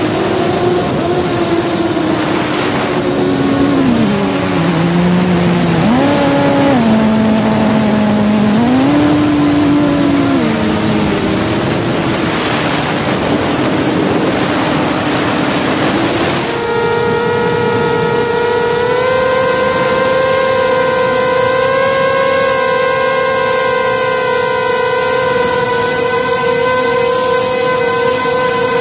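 Multirotor drone's electric motors and propellers whining, heard from the drone's own camera; the pitch drops and rises several times with the throttle, then jumps higher about two-thirds of the way through and holds steady.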